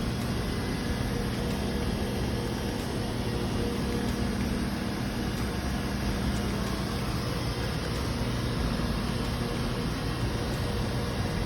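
Steady machinery running: a continuous low hum with a few steady tones over an even noise, unchanged throughout.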